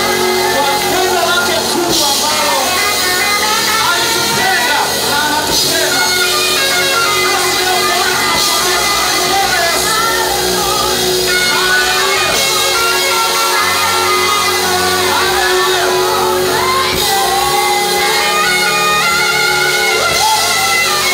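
Live gospel praise music in a large hall: voices singing and shouting over a band, with a steady held note underneath.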